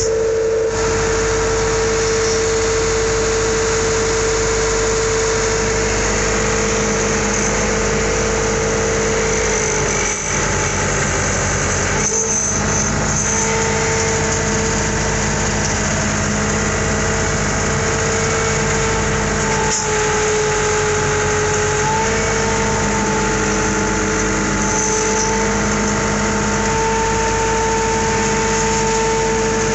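Farm tractor engine running steadily, with a steady high whine over the engine sound. The whine dips slightly in pitch about twenty seconds in and comes back up a couple of seconds later.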